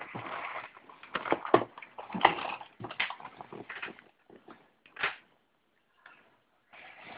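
Handling noise: irregular rustling with sharp knocks and clicks, busiest in the first half, with short quiet gaps later on.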